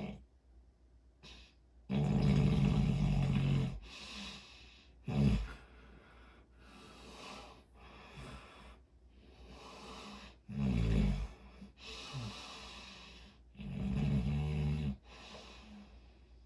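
A person snoring: several loud, buzzing snores with quieter breaths between them.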